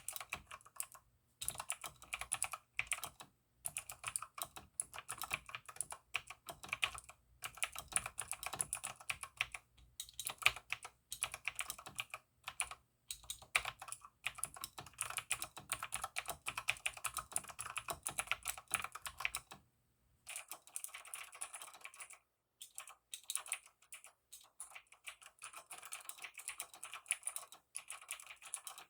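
Continuous typing on a mechanical keyboard with Outemo Blue clicky switches lubed with Krytox 205g: fast runs of sharp key clicks broken by brief pauses. A faint low hum underneath stops about two-thirds of the way through.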